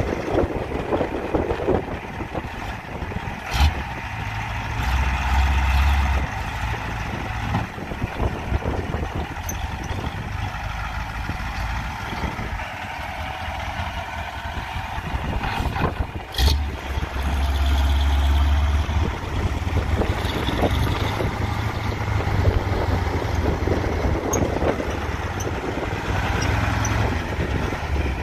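Caterpillar 1160 V8 diesel engine of a 1974 International Fleetstar dump truck running, heavier from about halfway in. Two brief sharp noises cut through, a few seconds in and about halfway in.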